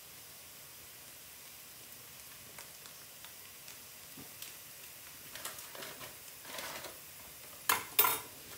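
Quiet kitchen handling: faint ticks and rustling as spice masala is tipped from a foil packet into a glass bowl of minced meat. Near the end come two short, loud crinkling noises close together.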